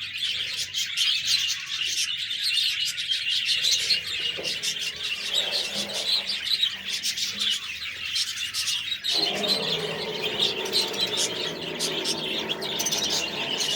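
A group of budgerigars (budgies) chirping and warbling in a dense, rapid chatter. About nine seconds in, a lower, fuller layer of sound joins underneath.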